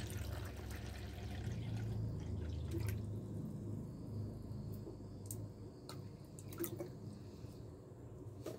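Spring water poured from a plastic bottle into a plastic cup, a steady pour that is strongest over the first few seconds and then thins out. A few light clicks come later.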